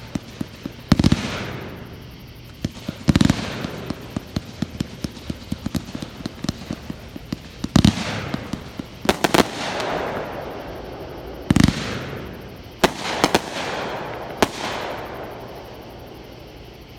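Fireworks launched from the ground and bursting: a fast string of low pops, broken by loud sharp bangs every one to three seconds, each trailing off. The firing dies down after about fifteen seconds.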